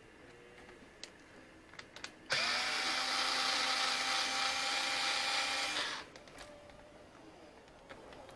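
Drill used as a screwdriver, running for about three and a half seconds to back a screw out of an RC car's rear hinge, with a steady whine that rises briefly as it spins up. A few small clicks of handling come before it.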